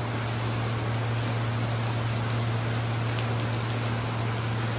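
Heavy rain falling steadily, an even hiss, with a steady low hum underneath.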